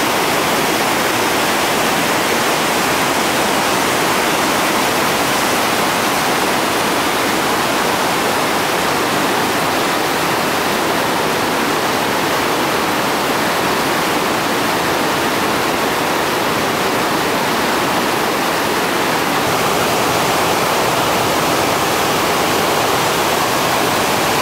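Whitewater rapids and a seven-foot river drop rushing loudly and steadily, with churning water and no letup.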